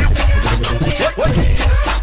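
Brazilian funk (baile funk) beat with no vocals: a heavy, pounding bass drum and regular hi-hats, with a few short rising swoops over the top.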